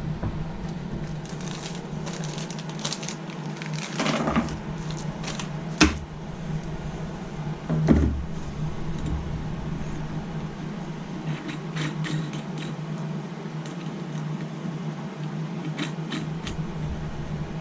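Scattered light metal clicks and knocks of nuts being handled and threaded onto a clamp's steel threaded rod, over a steady low hum.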